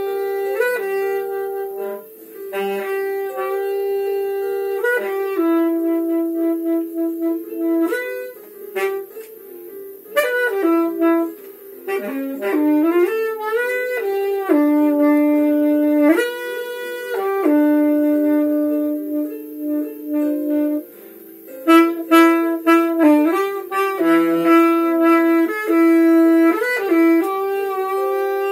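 Saxophone played solo: a single melody line of phrases with long held notes and a few notes bent upward in pitch.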